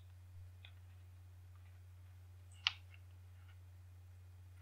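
Quiet handling with a steady low hum underneath: a few faint clicks and one sharper click about two and a half seconds in, as small metal scissors are picked up and opened against a mini water balloon.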